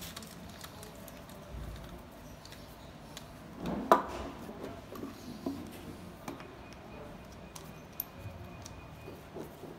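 Light metal clicks and clinks of hand tools and compression-gauge fittings being handled on a diesel engine's cylinder head, with one sharp louder knock about four seconds in.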